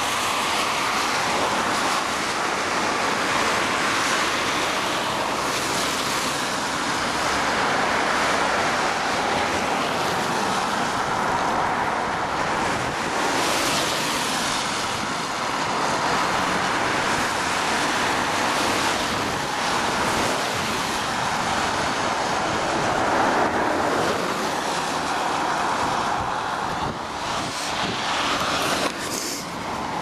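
Road traffic passing on a wet road: the tyre hiss swells and fades as cars go by, over steady wind noise on the microphone. A few knocks near the end.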